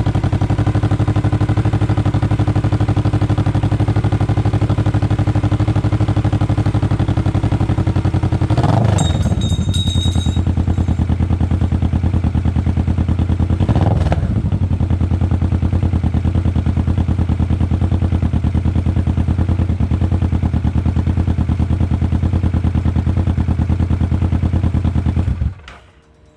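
Kawasaki Vulcan S 650's parallel-twin engine running steadily through an Orion full-system aftermarket exhaust. It gets briefly louder twice, about nine and fourteen seconds in. The sound cuts off about a second before the end.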